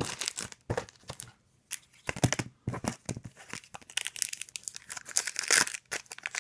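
Trading cards and foil card-pack wrappers being handled: a run of short snaps and clicks, then denser crinkling from about four seconds in.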